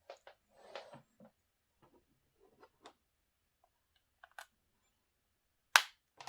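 Scattered small clicks, taps and short rustles from hands handling a power adapter and its packaging, with one sharp click near the end.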